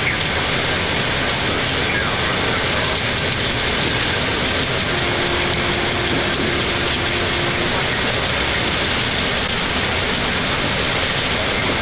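Steady rushing noise on the flight deck of a Boeing 747-8, from airflow and the aircraft's running systems, with a faint steady tone for a few seconds in the middle.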